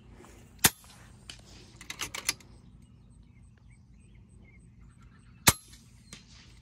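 Two sharp shots from an FX pre-charged pneumatic air rifle, about five seconds apart, with a quick run of fainter clicks a little over a second after the first shot.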